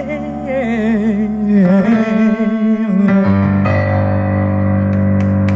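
A woman's voice sings a final phrase with wide vibrato, sliding down to a held low note, over a stage piano. The voice stops about three seconds in, and a sustained piano chord rings on to the end.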